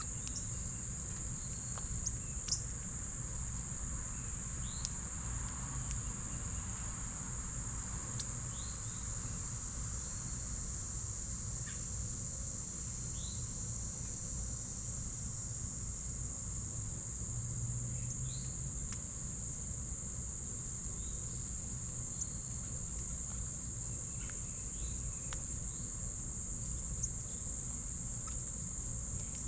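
A steady, high insect chorus of crickets trilling without a break, with a few short high chirps scattered through it and a low background rumble.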